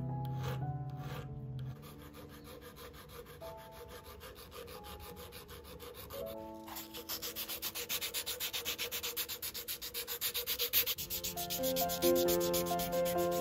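Hand file rubbing over the metal body of a Shimano Light Action rear derailleur in fast back-and-forth strokes, louder from about halfway in, over background music.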